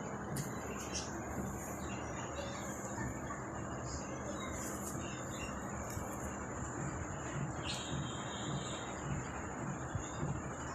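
Indian ringneck parrot bathing: a steady wash of water noise with short, sharp splashes every second or two, over a constant high-pitched whine.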